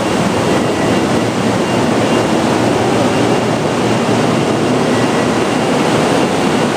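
Steady rushing noise of a standing 100 Series Shinkansen train with its onboard equipment running, with a faint high whine over it.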